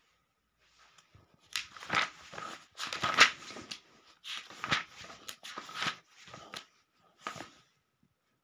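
Paper pages of a thick book being turned, a run of rustling swishes and crinkles starting about a second and a half in.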